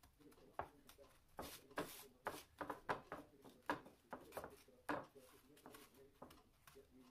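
Fingers rolling a batter-coated potato ball through dry toasted breadcrumbs in a metal baking tray: a run of short scratchy rustles and light ticks that thins out after about five seconds.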